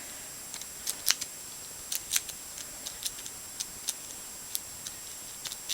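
Steel lock pick and tension tool clicking and scraping in the keyway of a dimple padlock as the pins are worked: irregular sharp little clicks, a few a second.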